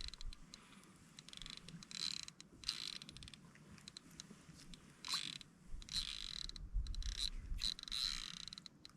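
Shimano Ocean Jigger 1000 fishing reel working in repeated bursts of gear and ratchet clicking as a snapper is fought on the line.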